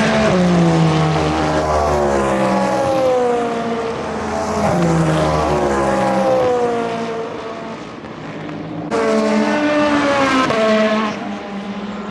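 Endurance race cars passing at speed, engine notes dropping in pitch as each goes by, about three passes, with an abrupt change about nine seconds in.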